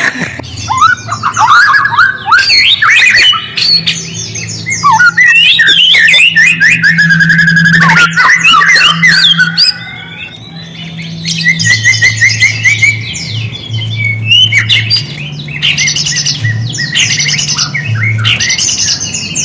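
A songbird singing loudly in a continuous, varied stream of gliding whistles, rapid trills and harsh notes, with a short lull about halfway and fast rattling phrases near the end. It is a lure song (pancingan) played to provoke white-rumped shamas into singing. A low steady hum runs underneath.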